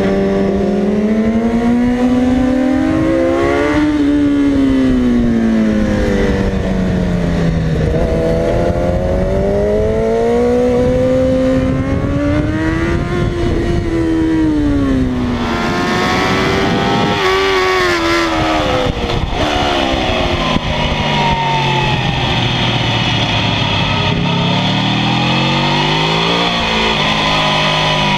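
Sport motorcycle engines heard from on board at track speed, the engine note rising and falling repeatedly as the bike accelerates and slows for corners, over steady wind rush. About halfway through the sound switches to a different bike with a lower-pitched engine note, which again climbs and drops.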